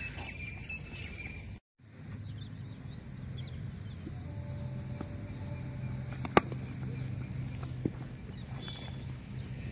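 Open-air background noise with faint bird chirps, broken by a brief dropout near the start. About six seconds in, one sharp crack of a cricket bat striking the ball, followed about a second and a half later by a softer knock.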